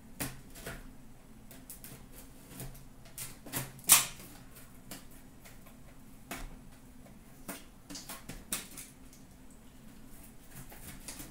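A box cutter slicing and scraping at a sealed hockey card box, a run of scattered short scrapes and clicks with a sharper snap about four seconds in. The blade is cutting poorly.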